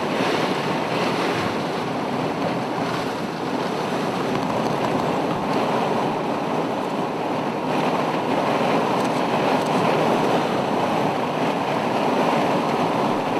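Steady rush of wind and road noise from a car driving along a road, with no distinct events.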